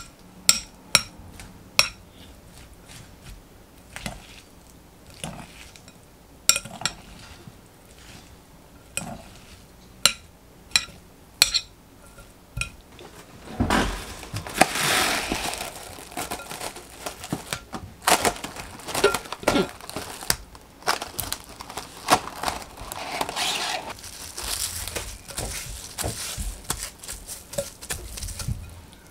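Metal tongs clink sharply against a glass mixing bowl about once a second while tossing sliced onions in cream cheese. About halfway through, this gives way to plastic cling wrap being pulled from its box and crinkled over the bowl.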